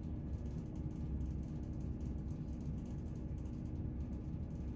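Cabin noise aboard a class 168 diesel multiple unit on the move: a steady, low drone from its underfloor diesel engines and running gear, with a few steady tones in it.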